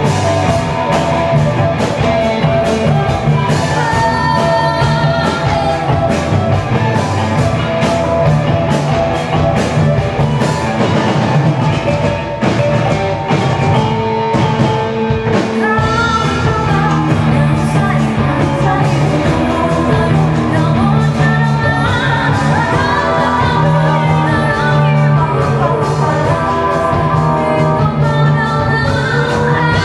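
Live ensemble music blending Minangkabau traditional instruments (gandang drum, talempong gong-chimes) with electric guitar, bass guitar, drum kit and keyboard, with singing voices over it and many drum strokes.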